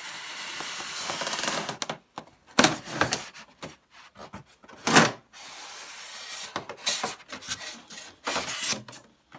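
Foam packing being pulled out of a cardboard TV box: about two seconds of steady rubbing and scraping, then a series of separate sharp scrapes and knocks, the loudest about halfway through.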